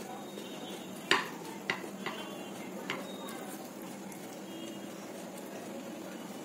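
A few sharp clinks of a hand against a small ceramic bowl as luchi is torn into egg curry. The loudest comes about a second in, with three lighter ones over the next two seconds.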